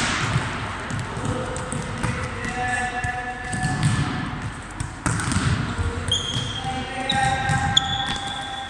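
Volleyballs being spiked and smacking and bouncing on the court floor of an echoing sports hall, with several sharp squeaks from players' shoes on the court.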